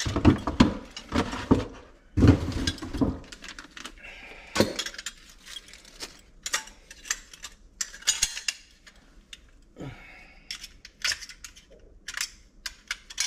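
Loose metal and plastic hardware clinking and clattering as it is handled and sorted, with a few heavier knocks in the first three seconds, then scattered sharp clicks and clinks.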